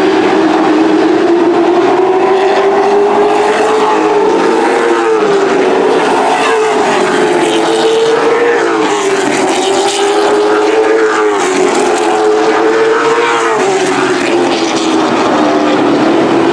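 Several super truck racing engines running hard around a short oval, loud and without a break. Their pitch rises and falls in waves every few seconds as the trucks lap, with more than one engine heard at once.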